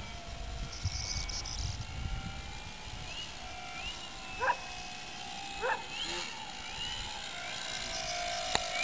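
Electric motor and propeller of a balsa 3D aerobatic model airplane in flight, a faint whine rising and falling in pitch with the throttle. A dog barks twice, short and sharp, about halfway through.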